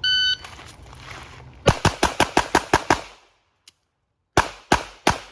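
Shot timer beeps once, then a pistol fires a rapid string of about nine shots in just over a second. After a pause of more than a second, three more shots follow, spaced about a third of a second apart.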